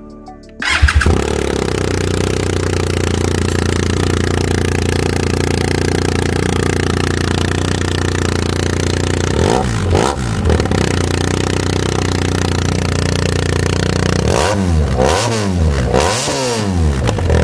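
BMW R 1250 GS Adventure's boxer twin started and run with its stock silencer removed, so it runs straight out of the open link pipe. It catches about a second in and idles steadily, is blipped twice around ten seconds in, and is revved several more times near the end.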